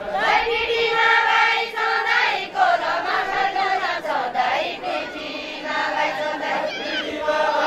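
A group of women singing a Deuda folk song together, several voices at once, coming in strongly just after the start.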